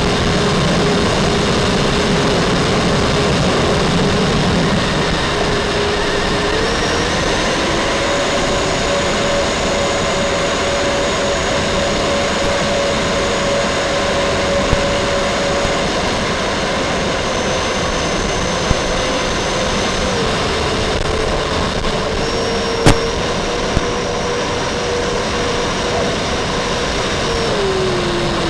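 Electric ducted fans of an RC F-14 Tomcat model running in flight, over a steady rushing noise. The fan whine steps up and down in pitch as the throttle changes. One sharp click comes about 23 s in.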